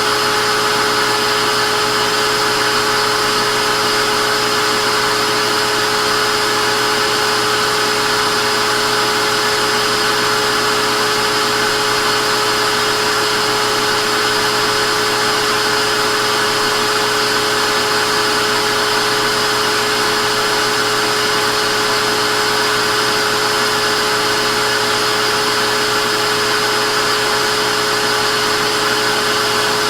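Vacuum cleaner motor running steadily, a constant rushing hiss with a steady whine.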